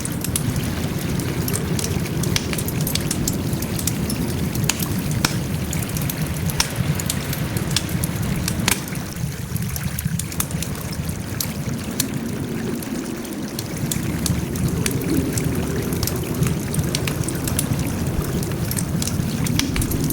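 Wood fire burning, a steady low rush of flame with frequent sharp crackles and pops from the burning logs.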